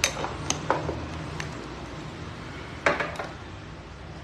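Wooden agarwood bead bracelets clicking and knocking together as they are handled: a handful of short, sharp clicks, the loudest at the start and about three seconds in, over a steady low hum.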